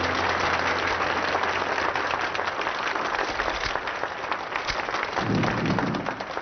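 A crowd applauding: a dense crackle of many hands clapping. Near the end a lower rumbling sound joins in.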